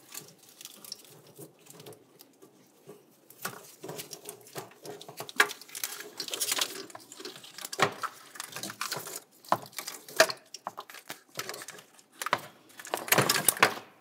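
Fuel rail with its fuel injectors being worked free and lifted out of the engine: irregular clicks, rattles and rustling of plastic, metal and wiring being handled, with louder clatters about halfway through and near the end.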